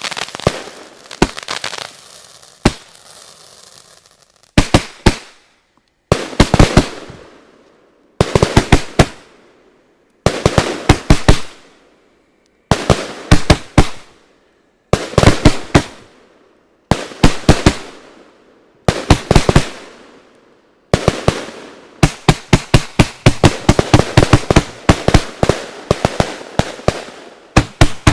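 'Fata Morgana' consumer fireworks battery (cake) firing: volleys of a few sharp reports each, coming about every two seconds, then a fast, dense run of shots from about 21 seconds in.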